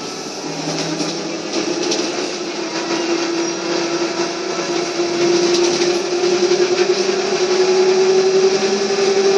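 Škoda 15Tr trolleybus accelerating, heard from inside: the traction motor's whine slowly rises in pitch and grows louder over road noise, with a few light rattles.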